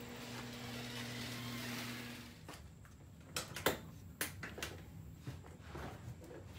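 A car engine running steadily, cutting off about two seconds in. Then a series of sharp clicks and knocks as the door of an MGB roadster is opened and handled.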